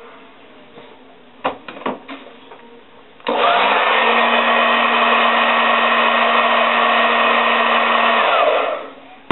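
Handheld Andis hair dryer blowing on the glued weave track to set the bonding glue: a few handling knocks, then the dryer switches on about three seconds in and runs at a steady rush of air with a steady hum under it, switching off and winding down shortly before the end.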